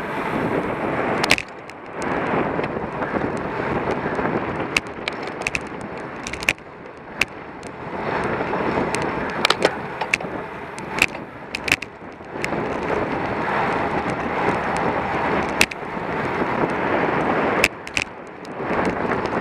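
Rush of air and tyre noise from a road bike at race speed on asphalt. It swells and eases in waves with short lulls, and sharp clicks and rattles come through now and then.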